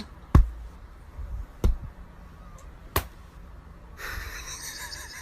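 Three separate knocks: two dull, heavy thumps a little over a second apart, then a sharper click, followed near the end by a softer, steady rustling noise.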